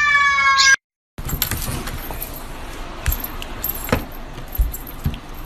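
A cat's drawn-out meow ends just under a second in. After a short break there is a steady low background with scattered light clicks and knocks, louder near the end.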